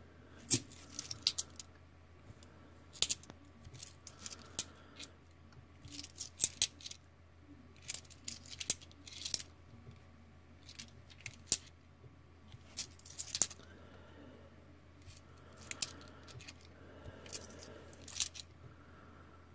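Australian 20-cent coins clinking against each other as they are handled one by one from a roll, in irregular sharp clicks about a second apart.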